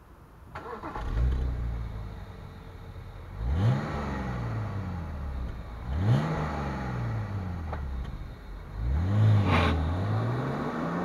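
BMW E92 325i's N53 three-litre straight-six starting about a second in, settling to idle, then revved three times, each rev rising quickly and falling back to idle; the last rev is the longest.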